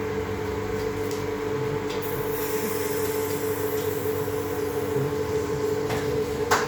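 Steady machine hum holding a constant tone, with a sharp click near the end.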